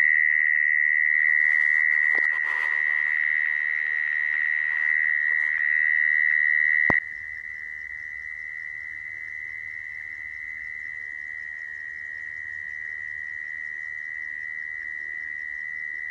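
Mole cricket's continuous trilling call, one steady high-pitched tone. About seven seconds in, a click is heard and the call drops sharply in volume, then carries on quieter and unbroken.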